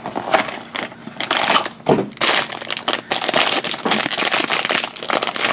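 Silver foil blind-bag wrapper crinkling and tearing as hands open it, with cardboard box handling at first; a run of short crackling rustles.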